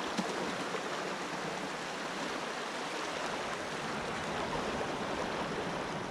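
Small waves washing and lapping around rocks at the water's edge, a steady wash, with one small click just after the start.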